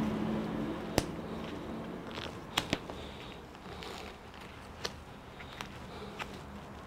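Quiet indoor background with about half a dozen sharp clicks and taps scattered through it, two close together near the middle. A low humming noise fades away over the first couple of seconds.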